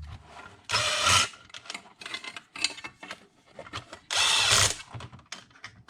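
Power drill-driver whirring in two short bursts, about a second in and again past four seconds, running in the bolts of the locking plate on a chainsaw engine, with small clicks of handling between.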